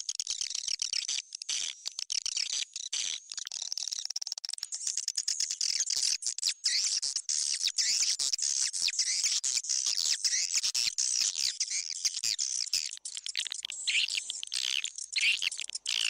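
Recorded swiftlet lure call for a swiftlet house: a dense chorus of edible-nest swiftlets twittering, with many short high chirps overlapping without a break. Some lower, down-bending calls stand out near the end.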